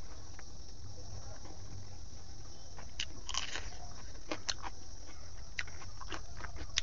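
Close-miked eating sounds: wet chewing of a mouthful of rice and pork intestines. From about three seconds in come crisp crunches as a raw red onion is bitten into and chewed.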